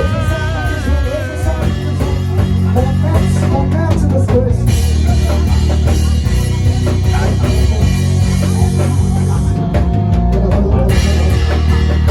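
Live gospel band music with drum kit, bass and guitar playing a steady groove, with a voice singing briefly at the start.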